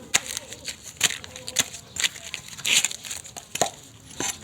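Irregular sharp cracks and crinkling, a few a second, of something dry and brittle being broken and crushed, with a denser run of crackling just before the three-second mark.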